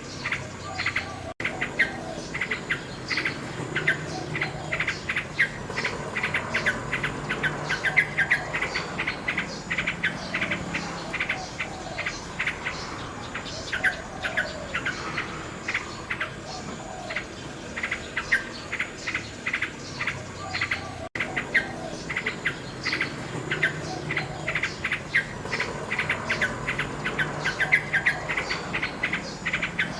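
Nightingale singing, its varied phrases set against a steady, rapid chirping of insects. The sound drops out for an instant twice.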